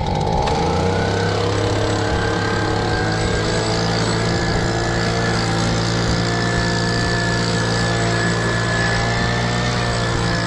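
Petrol leaf blower starting to run and revving up over the first second, then running steadily at high throttle. It is blowing air into the gaps under the boulders to flush a hiding mink out.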